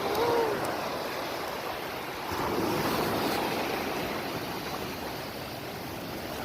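Sea surf washing onto a beach, a steady wash of noise that swells about two seconds in.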